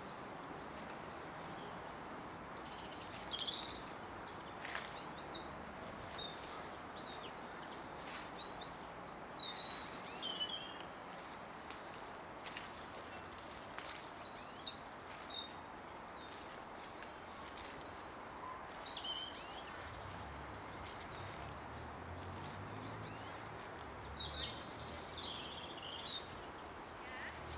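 Songbirds singing: several phrases of rapid high notes, clustered about 3 seconds in, around the middle, and loudest near the end, over a steady background hiss of outdoor noise.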